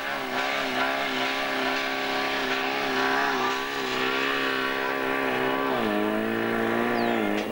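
Portable fire pump's engine running at high, steady speed. Its pitch drops about six seconds in and rises again just before the end.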